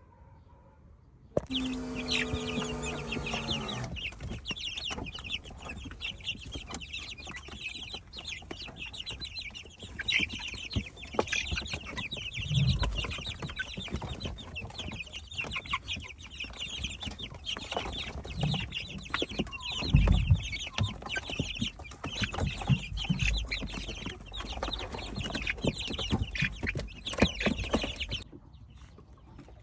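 A flock of chickens clucking and calling continuously, opening with one long drawn-out call, with a few low thumps among the clucks. It starts abruptly just after the start and cuts off suddenly near the end.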